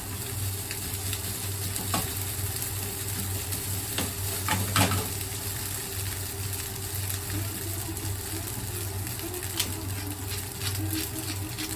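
Fried rice sizzling in a pan while it is stirred and tossed, with a spatula knocking against the pan a few times. A steady low hum runs underneath.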